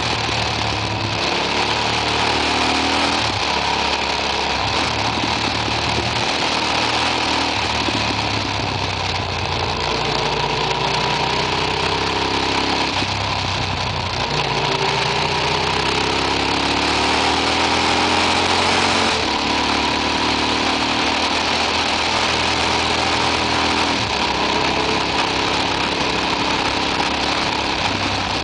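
Motorcycle engine heard from on board while riding, its revs climbing and falling again and again through gear changes and bends, over steady wind noise.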